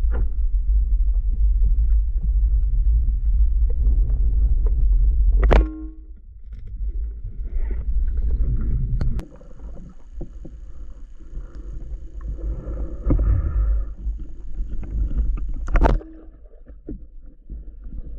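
Underwater noise on a diving camera's microphone: a heavy low rumble of water with scattered clicks and knocks. The sound changes abruptly three times, each change starting with a sharp click.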